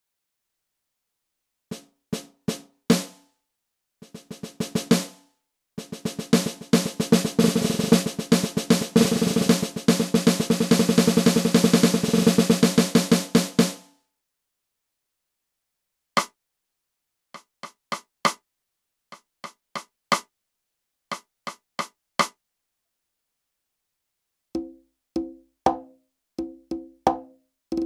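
Roland SPD::ONE Percussion electronic pad struck with drumsticks, playing its wood snare sound: a few single hits, then a fast snare roll lasting about eight seconds, then sparse single strokes. Near the end it switches to its conga sound, pitched open and slap conga tones.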